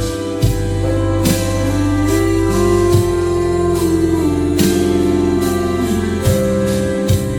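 Background music: sustained instrumental notes over a steady bass, with a soft beat.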